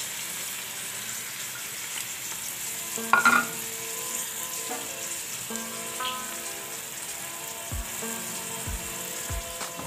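Freshly added sliced onions sizzling steadily in hot oil in a cooking pot, the start of frying them until golden. A short louder sound comes about three seconds in, and soft background music joins after it.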